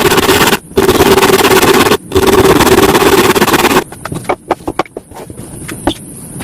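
A woodworking power tool running loud in three long bursts with brief stops between them, cutting off a little over halfway through, followed by a run of sharp clicks and knocks.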